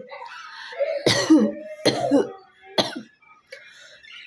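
A woman coughing three times, about a second apart, the last cough weaker. These are forced coughs meant to bring up phlegm that, by her own account, has not built up.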